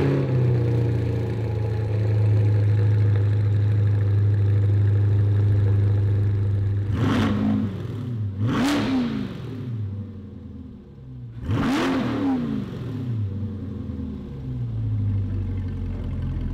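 C8 Corvette's V8 through a Ryft titanium exhaust, just started and settling from its start-up flare into a high, steady idle. Three quick throttle revs rise and fall in pitch at about 7, 9 and 12 seconds, then it drops back to idle.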